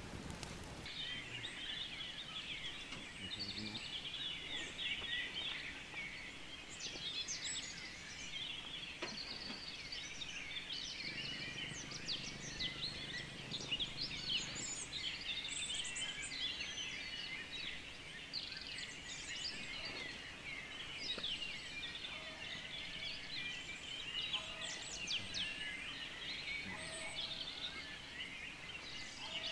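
A flock of small birds chirping and twittering together, a dense continuous chorus of short high calls.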